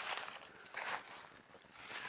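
Footsteps in dry leaves and on loose rock, roughly one step a second, each a short rustling crunch.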